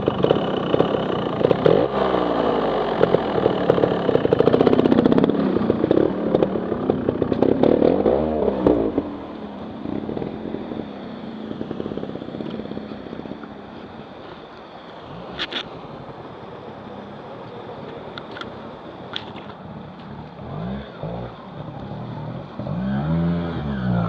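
Trials motorcycle engines revving, pitch rising and falling, loud for the first nine seconds or so, then dropping back to a quieter running sound under the noise of a rushing stream. Near the end a bike revs up again with a rising then falling pitch as it climbs through the water.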